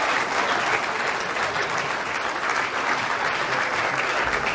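Audience applauding steadily, greeting performers as they are introduced.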